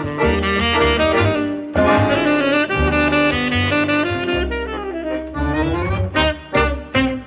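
Jazz with a saxophone lead over a walking bass, played back through a hi-fi stereo's floor-standing loudspeakers.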